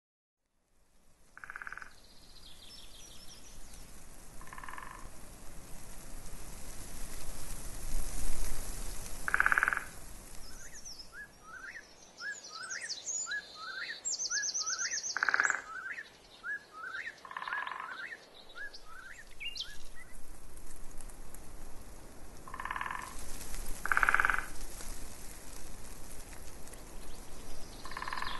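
Frogs calling outdoors in short croaks every few seconds, with a bird singing a run of quick rising chirps and a high rapid trill in the middle.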